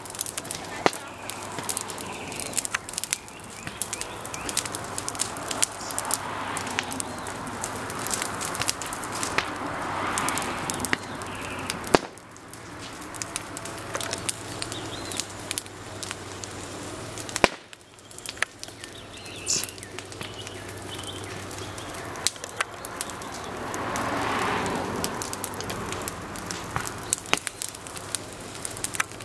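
Open fire in a heaped pile of dry branches and yard waste, crackling steadily with frequent irregular sharp pops and snaps.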